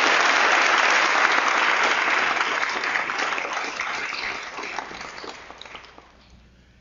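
Studio audience applauding, loud at first and dying away near the end.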